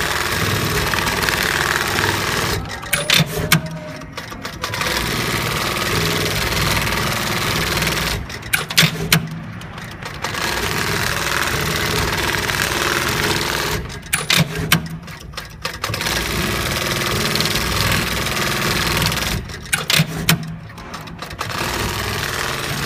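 Programmable pattern sewing machine stitching heavy-duty webbing in repeated cycles. It runs steadily for about four seconds at a time and breaks off four times for about two seconds, each break holding a few sharp clicks.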